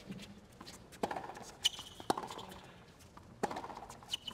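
Tennis rally on a hard court: sharp racket-on-ball hits and ball bounces about a second apart, with a couple of short, high shoe squeaks.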